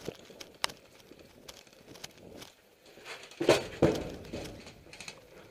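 Footsteps and rustling gear of players moving on foot, with scattered small clicks and two louder knocks about three and a half seconds in.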